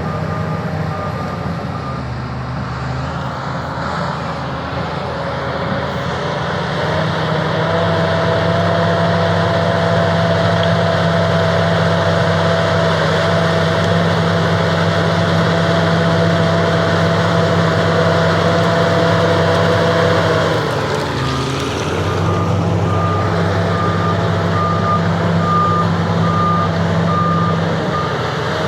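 SEM 816 crawler bulldozer's diesel engine running, working harder and louder from about seven seconds in until it eases off about twenty seconds in. Its reversing alarm beeps in a quick steady series at the start and again near the end while it backs up.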